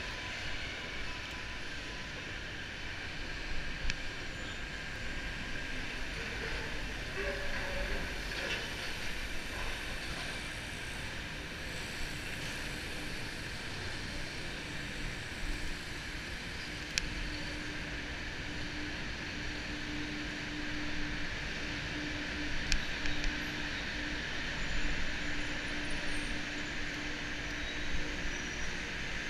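City street traffic heard from a bicycle riding beside slow, backed-up cars: a steady rumble and hiss with a few sharp clicks. A low, steady engine hum comes in about halfway and runs until near the end.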